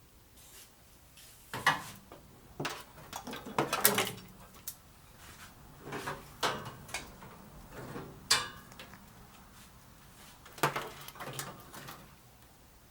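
Irregular clicks, knocks and rustles of objects being handled, about a dozen separate sounds; the loudest are sharp knocks about 4 seconds in, about 8 seconds in and near the end.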